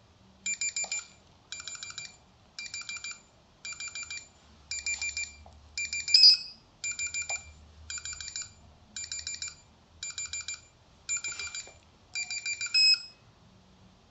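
Spectrophotometer's tolerance alarm beeping: short runs of rapid high electronic beeps repeating about once a second, about a dozen times, stopping near the end. It signals that the measured sample colour is not within the set colour tolerance.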